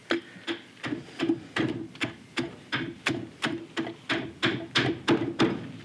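Carving axe, choked up for close work, taking quick short cuts into a green sycamore cup blank: a steady run of strikes, about three a second.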